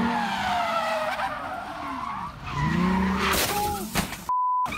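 Car tyres squealing as a car slides and skids through a turn on pavement, the squeal wavering up and down in pitch. Near the end a short one-tone censor bleep covers a word.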